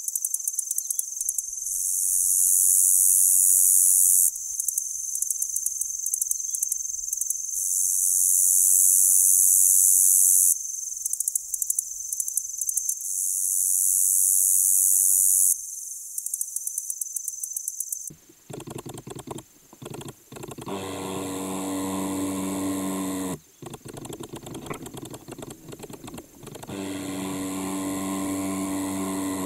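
Meadow katydid (Orchelimum) singing, heard through the air: a high, thin buzz of a few seconds alternating with runs of rapid ticks, three times over. About 18 seconds in it switches to the same song picked up as vibration from the plant stem and made audible: much lower and fuller-toned, with two long buzzes separated by ticking.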